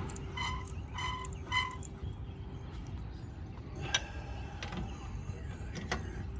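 A few sharp metallic clicks from a lug wrench on the wheel's lug nuts while the wheel is refitted, the loudest about four seconds in. Before them come three short, evenly spaced chirps, over a steady low background rumble.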